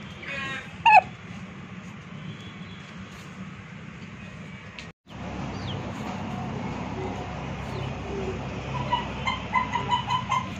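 Chicken calls: a loud, falling squawk about a second in, then a quick run of short, repeated clucks near the end.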